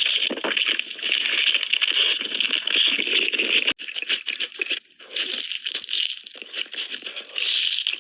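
Crunching and chewing of crispy Korean fried chicken: a dense crackle of breaking batter, cut off abruptly a little before halfway through, then resuming.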